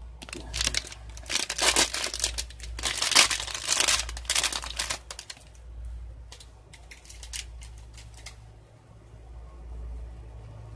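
Shiny foil wrapper of a blind-box vinyl mini figure crinkling as it is handled and opened. The crinkling is dense for about five seconds, then thins to a few scattered crackles and stops.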